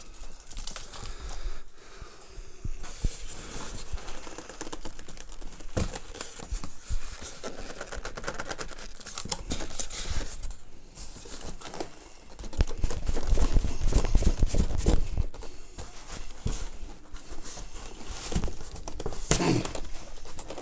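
Cardboard and packing material being handled and rustled as a monitor is worked loose from its box: irregular crinkling, scraping and small knocks, with a louder stretch of rubbing and scraping about two-thirds of the way through.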